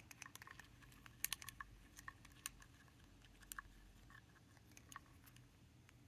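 Near silence with faint, scattered small plastic clicks and ticks from a syringe and a fountain-pen barrel being handled as ink is syringed into the pen. The clicks come most often in the first half and thin out toward the end.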